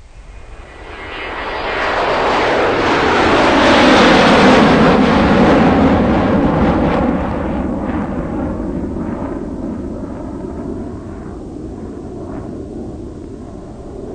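A loud rushing roar of noise, a cartoon sound effect. It swells to its loudest about four seconds in, its pitch sinking as it builds, then slowly dies away.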